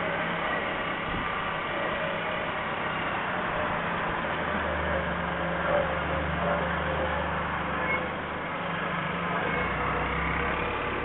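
A motorcycle running at a steady cruise, heard from the rider's head-mounted camera as a steady rush of wind and road noise over a low engine drone. The drone grows stronger for a few seconds in the middle.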